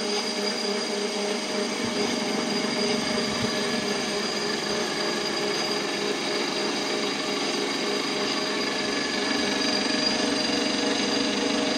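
Benchtop metal lathe running steadily as it takes a cut in an aluminium wheel spacer, its motor and gearing giving a steady hum with a thin high whine above; slightly louder near the end.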